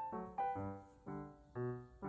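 Background piano music: notes and chords struck a few times a second, each ringing out and fading.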